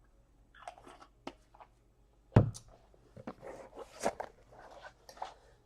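Handling noises of trading-card boxes and packs: scattered rustling and light clicks, with one sharper knock about two and a half seconds in.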